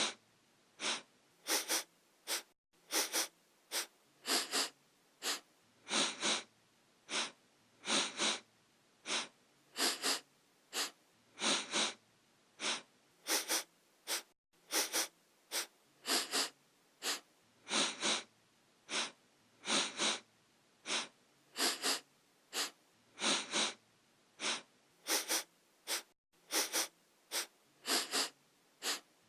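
A person sniffing sharply through the nose, over and over, in quick runs of two or three sniffs with short pauses between them.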